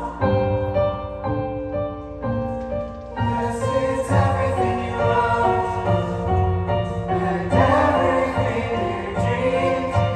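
Musical-theatre cast singing sustained choral harmonies with instrumental accompaniment, the chords moving from note to note.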